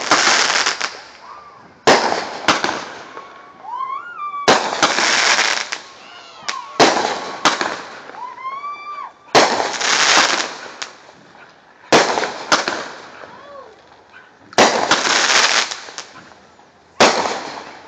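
Consumer fireworks going off in quick succession: about a dozen sharp bangs, each followed by roughly a second of loud crackling hiss.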